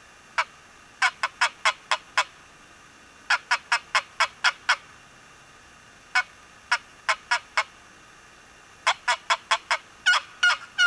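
Hand-worked wooden turkey box call sounding runs of short hen-turkey yelps, about five to seven notes a run at roughly four a second, with pauses between runs. The last few notes near the end are raspier.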